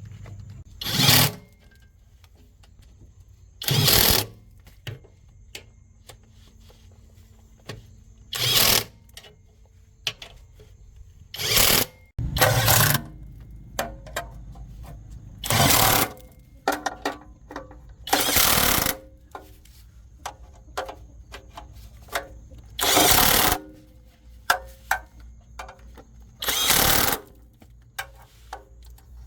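Short loud bursts of a power tool, each about half a second to a second long and repeated roughly every three seconds, with light clicks and knocks between them.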